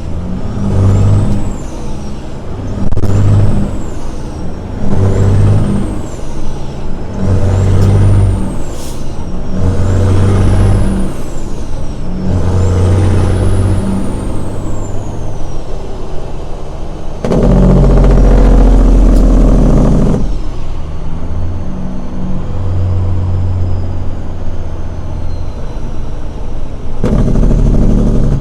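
Semi truck's diesel engine running in the cab while driving, its low drone pulsing on and off about once a second, with a high whistle that rises and falls repeatedly in the first half. A loud blast of noise lasts about three seconds, starting about seventeen seconds in.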